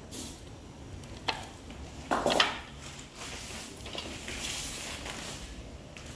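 Large kitchen knife knocking on a wooden chopping board over chopped takla (Cassia tora) leaves, with a louder clatter a little after two seconds in. This is followed by a soft rustle as the chopped leaves are gathered into a metal bowl.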